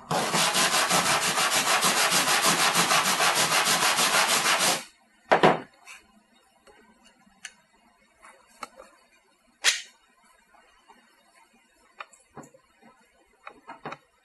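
Aluminum panel being rubbed clean with an abrasive in fast, even strokes for about five seconds, stopping abruptly: surface prep to remove oxidation before welding. Then a sharp double snap, and another single snap a few seconds later.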